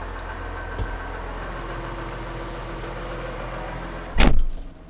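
New Holland T7.315's six-cylinder diesel engine idling steadily just after being started, heard from inside the cab. A short, loud thump near the end.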